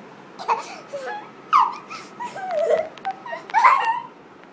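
A young child's high-pitched squeals and whiny cries in short outbursts. The loudest come about a second and a half in and again near the end.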